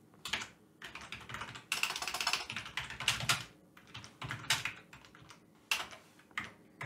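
Typing on a computer keyboard: clusters of quick keystrokes with short pauses, with a fast run of keys about two seconds in.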